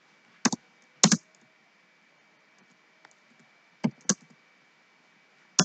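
Computer keyboard keystrokes as code is typed: two strokes about half a second and a second in, then two more close together about four seconds in, with quiet between.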